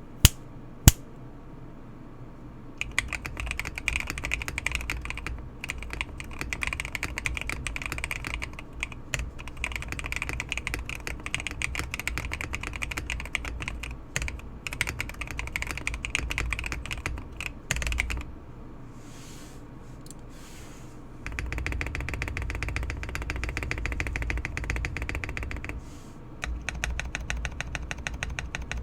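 Typing on a mechanical keyboard fitted with Akko Radiant Red switches: dense runs of key presses, with a short pause about two-thirds of the way through and a burst of fast, continuous typing after it. Two sharp single clicks come right at the start.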